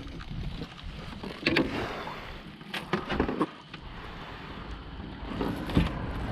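A handful of short knocks and thumps on a small boat, over a steady low rumble of wind on the microphone.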